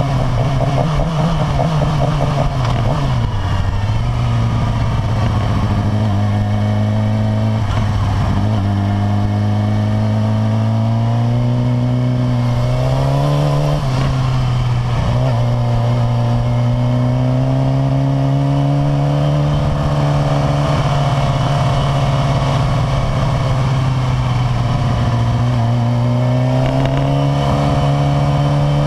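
Suzuki GSX-R600's inline-four engine running under light throttle while riding, its note dropping a few seconds in, then climbing and easing back again several times.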